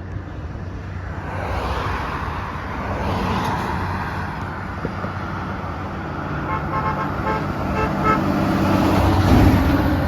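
Road traffic running by, with a vehicle horn giving several quick short toots about two-thirds of the way in. The low traffic rumble swells to its loudest near the end.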